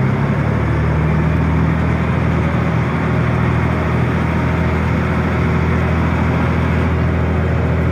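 Boat engine running steadily with a deep, even hum.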